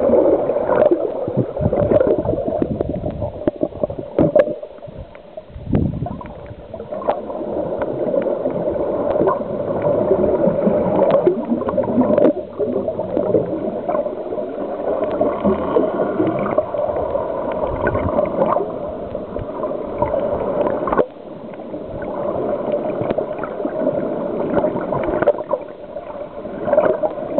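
Underwater bubbling and gurgling with scattered clicks, swelling and easing with brief lulls, typical of a diver's exhaled air bubbles heard through an underwater camera.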